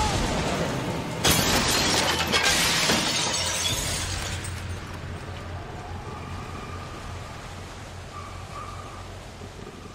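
Loud crash of shattering and breaking debris, starting about a second in and fading over the next three seconds, over a low sustained drone in the score.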